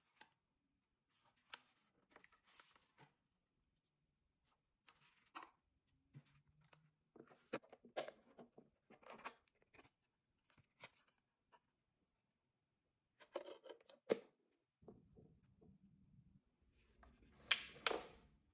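Faint handling noises of a plastic CD player being unboxed: scattered taps, scrapes and rustles as its paper protection sheet is lifted off, with a louder clatter near the end as a disc is fitted onto the player.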